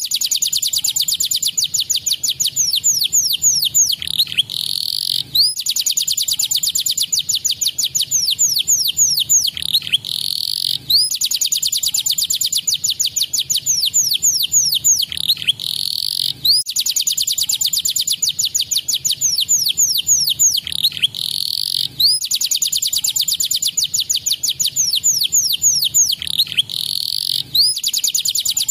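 Domestic canary singing: long rapid trills of high downward-sweeping notes, in phrases that repeat about every five and a half seconds, each opening with a short buzzy note.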